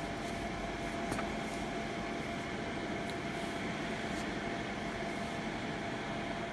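Steady whirring hiss of a small electric blower running, with a faint constant hum.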